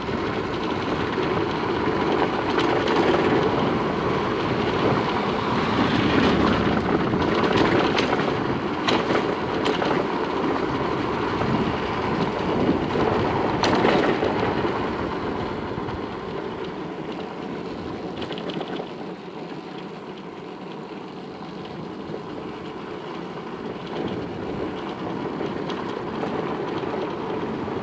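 Motorcycle being ridden on a rough track: a steady mix of engine and wind noise, easing off somewhat in the second half before picking up again near the end.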